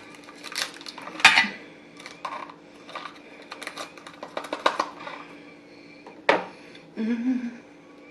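A utensil clinking and scraping against a dish and a container: a run of uneven light knocks and scrapes, with a sharper clink about a second in and another near six seconds.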